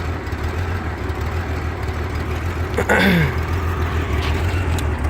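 1989 Honda Gold Wing GL1500's flat-six engine idling with a steady low drone that pulses unevenly: the rough idle the owner is trying to diagnose. A brief, higher sound cuts in about three seconds in.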